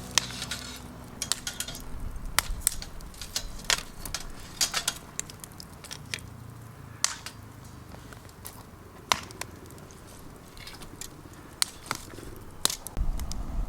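Wood cracking and snapping: sharp, irregular cracks come every second or so, some much louder than others, over a low background.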